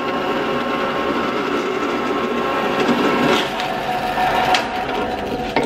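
Vertical band saw running with its blade cutting through a metal fitting, a steady whine with a rasp of teeth on metal.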